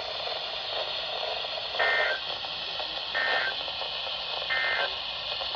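NOAA Weather Radio sending the three short EAS (SAME) digital end-of-message bursts, warbling data tones about a second and a half apart, over steady radio hiss. They mark the end of the severe thunderstorm warning broadcast.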